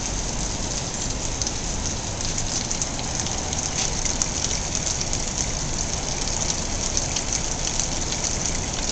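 Thin stream of water from a lion-head wall fountain spout, splashing steadily into a shallow basin.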